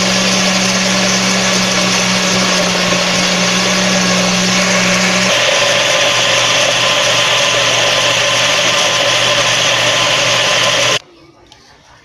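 Countertop blender running, mixing chocolate cake batter: a loud steady motor hum with churning. Its tone shifts about halfway through as the batter turns smooth, and the motor cuts off suddenly about a second before the end.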